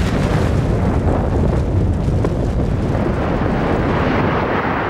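Lava fountain erupting: a steady, loud rushing noise with a deep rumble underneath.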